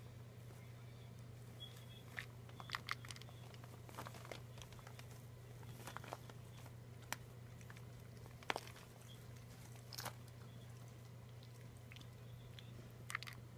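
A cat at a mouse-shaped plastic treat ball filled with dry kibble: scattered sharp clicks and crunches, a few seconds apart, with a small cluster about a quarter of the way in and another near the end.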